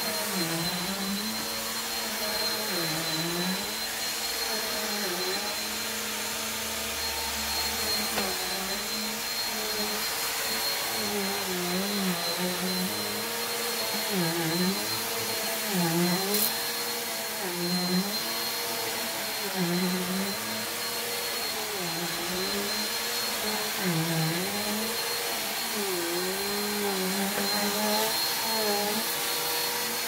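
Corded bagless upright vacuum cleaner running continuously while it is pushed back and forth over a bare mattress. Its motor note dips in pitch and recovers every second or two with the strokes, over a steady high whine.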